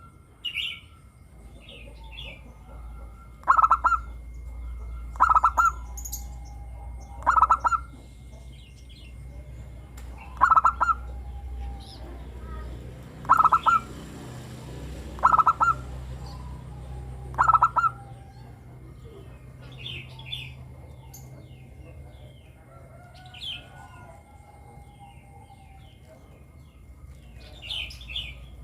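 Zebra dove (perkutut) singing: a run of loud, short, trilled coos about every two seconds, seven in all. After that come softer coos and small high chirps.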